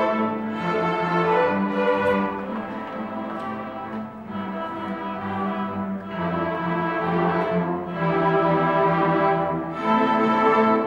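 A string orchestra of violins, cellos and double basses playing with sustained bowed notes. It eases off a few seconds in and swells back up near the end.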